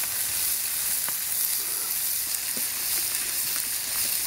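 Food sizzling over a campfire: a steady hiss with a few faint clicks.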